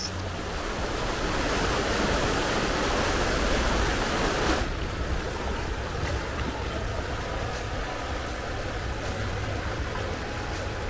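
Shallow river water rushing steadily, a continuous noise that swells after about a second and then drops suddenly after about four and a half seconds to a lower, steady rush.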